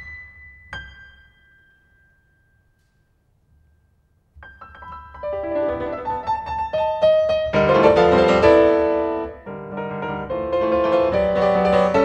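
Piano: a high note rings and fades in the first seconds, then after about two seconds of silence a rapid run of notes enters and builds into loud, dense chord clusters.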